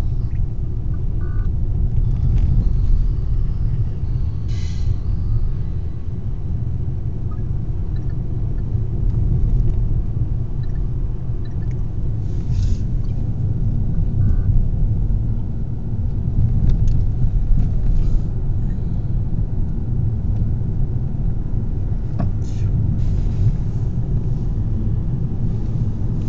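Steady low rumble of a car driving, heard from inside the cabin: engine and road noise, with a few faint brief noises on top.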